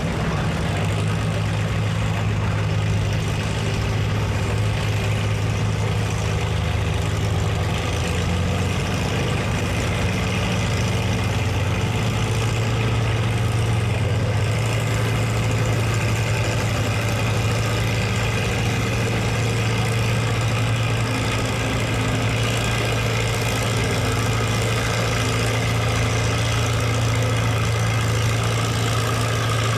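Massey Harris 44 farm tractor's engine running at a steady, even pitch, shifting a little about a quarter of the way in and growing stronger after that.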